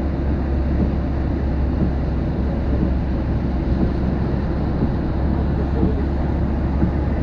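Storm wind blowing across the microphone: a steady, loud, low noise with no distinct strikes.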